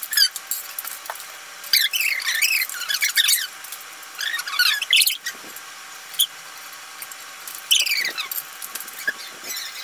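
High-pitched squeaky chattering in short bursts, three main ones, from voices and table noise sped up in a time-lapse, giving a chipmunk-like sound.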